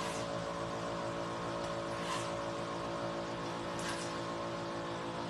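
Hydrodermabrasion (hydro-facial) machine running with a steady motor hum as its water-suction handpiece is worked over the skin, with a few brief hisses.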